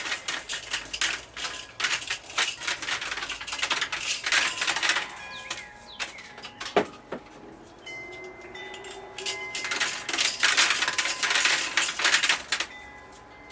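Hickory King seed corn kernels being stripped off the ear by a twisted Decker hand corn sheller, rapidly clicking and rattling into a bucket. It comes in two bursts with a quieter stretch in between.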